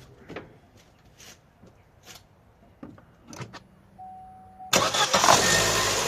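Opel Astra J 1.4 four-cylinder petrol engine cranking and catching about three-quarters of the way in, then running steadily, just after a new spark plug and ignition coil were fitted to cure a misfire. Before it, a few light clicks and a short beep.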